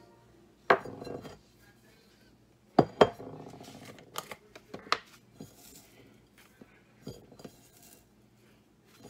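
Glass jar clinking and tapping against a ceramic bowl while dried parsley flakes are shaken out of it: about a dozen sharp knocks at uneven intervals, each with a short ring. The loudest come about half a second in and as a close pair near three seconds in.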